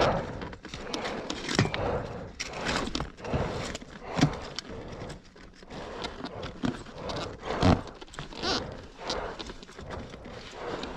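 A person breathing hard in irregular bursts, with footsteps crunching on loose sand.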